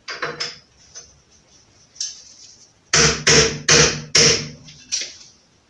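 A 100-gram clip-on calibration weight is hammered onto the outer rim flange of a wheel on a wheel balancer. A few light clicks are followed by four sharp metallic blows about 0.4 s apart, each ringing briefly, then one lighter tap near the end.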